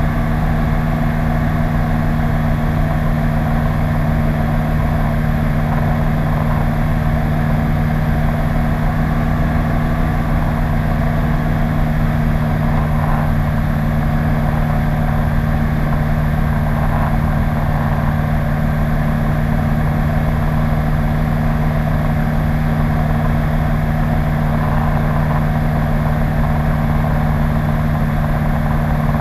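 PS-28 Cruiser light aircraft's Rotax 912 flat-four engine and propeller running steadily: a loud, even drone with two strong low hums that hold the same pitch throughout.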